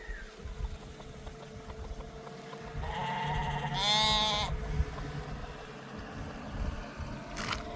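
A single bleat from a flock animal, about three seconds in: one wavering call lasting about a second and a half, over a low rumble.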